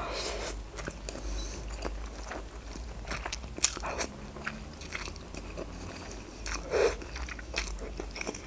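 Close-miked eating of soft instant noodles: slurping strands into the mouth and chewing, with many small, sharp, wet mouth clicks.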